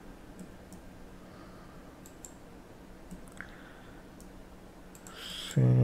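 Faint, scattered clicks of a computer mouse over a low steady hum. Near the end comes a breath and a short voiced sound.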